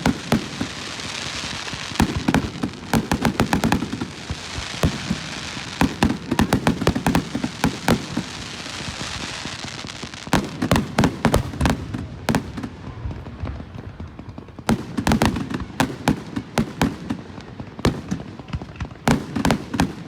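Fireworks going off: repeated runs of rapid, sharp crackling pops with a hiss between them, easing off for a couple of seconds about twelve seconds in.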